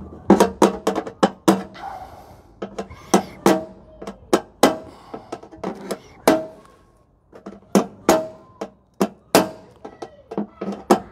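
Claw hammer striking a steel chisel held against the welded steel sill repair panel of a Jaguar XJ6: a string of sharp metallic taps, about two a second with a brief pause midway, many with a short ring. The blows knock the panel edges down so that they lie flush for a clean gas-welded seam.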